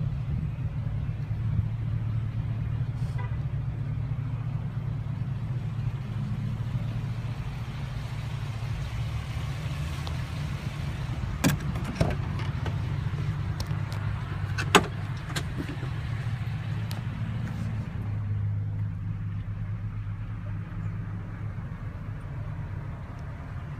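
A Chevrolet Silverado pickup's engine idling steadily, a low even hum. A few sharp clicks and a clunk come about twelve and fifteen seconds in as the truck's door is unlatched and opened. After that the idle sounds duller, heard from inside the cab.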